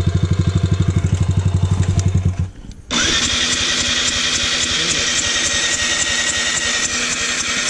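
Electric starter cranking a Yamaha Raptor 660's single-cylinder engine, which spins over without catching. The rider suspects the timing chain has broken because the engine just spins. A fast pulsing engine sound stops about two and a half seconds in, and half a second later the starter whirs up again and keeps spinning.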